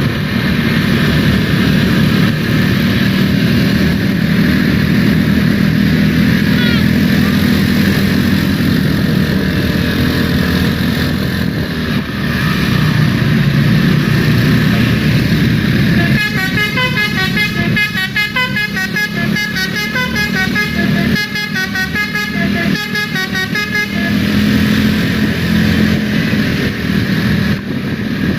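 Vehicle engine and traffic noise, then, about halfway through, a bus's basuri 'telolet' musical horn plays a quick stepping melody of horn notes for about eight seconds, with two brief breaks near its end.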